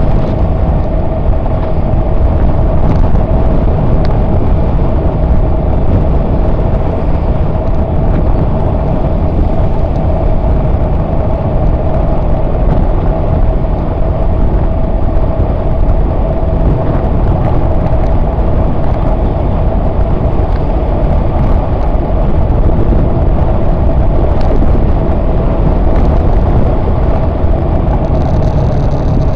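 Wind rushing over the microphone of a camera mounted on a moving motorcycle, with a steady hum running underneath.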